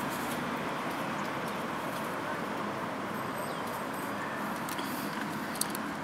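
Steady outdoor background noise with no speech, and a couple of faint clicks near the end as the plastic toy truck's turret figure is handled.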